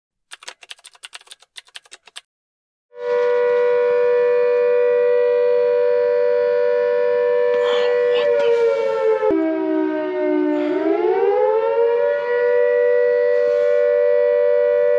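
A few seconds of faint crackling clicks, then a loud, steady siren-like tone of two held notes together. Past the middle it sags lower in pitch and glides back up to the same notes.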